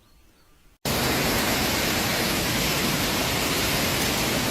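A loud, steady rush of water starts abruptly about a second in, after near silence, and holds unchanged.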